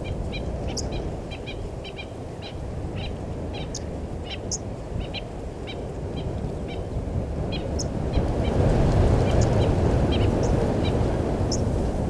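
Birds calling in short, high chirps and notes scattered throughout, over a low rushing noise that grows louder about eight seconds in.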